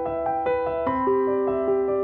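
Background music: a gentle melody of held, overlapping keyboard notes.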